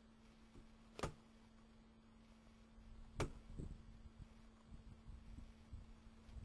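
Two sharp knocks about two seconds apart over a faint steady hum.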